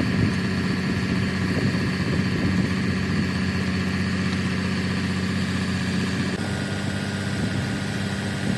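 Steady drone of an engine or motor running at a constant idle, its pitch unchanging, with a slight change in tone about six and a half seconds in.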